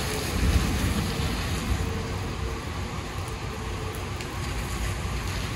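Steady rain falling on wet pavement, with a low rumble in about the first second.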